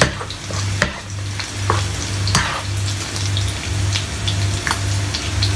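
Bacon sizzling in a frying pan, with a few short clicks and scrapes of a utensil against the pan, over a low steady hum.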